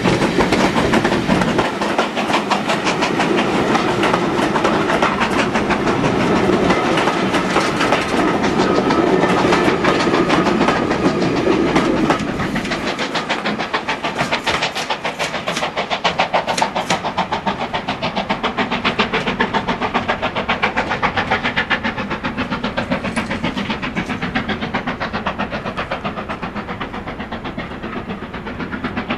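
Coaches of a steam-hauled passenger train passing close by, their wheels clattering rhythmically over the rails. The sound drops about twelve seconds in as the last coach goes by, then fades as the train pulls away.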